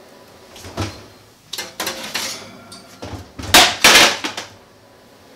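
Kitchen cookware being handled: a run of knocks and clattering, with the loudest rattling stretch about three and a half seconds in.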